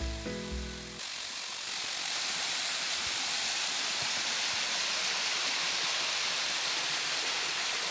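Background music cuts off about a second in, giving way to a small waterfall's water running steadily down a rocky stream bed, an even rushing hiss.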